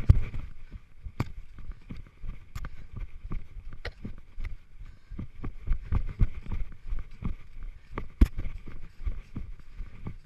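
A runner's footsteps on leaf-covered forest ground, picked up by a GoPro worn on the body: an uneven patter of footfalls with sharp clicks and knocks as the camera jolts with each stride, over a low rumble.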